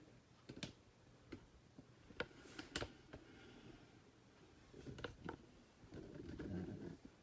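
Faint handling noise: about half a dozen separate light clicks and knocks, with a short rustle near the end.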